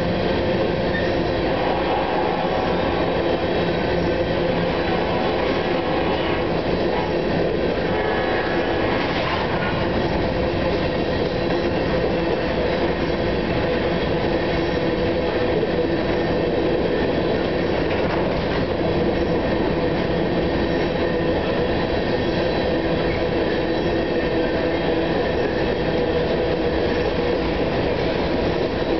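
Freight train's coal hopper cars rolling steadily past on the rails: a continuous loud rumble of steel wheels with clickety-clack over rail joints and a steady wheel squeal.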